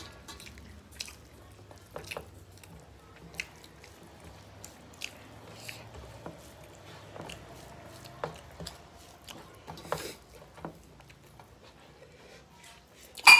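Close-up eating sounds: chewing, lip smacks and wet squishing as rice and curry are mixed and eaten by hand, with many small scattered clicks. Just before the end a sharp metallic clink with a brief ring, the loudest sound.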